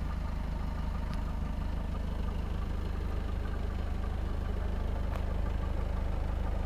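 Seat Leon car engine idling steadily, a low even hum, with a couple of faint ticks.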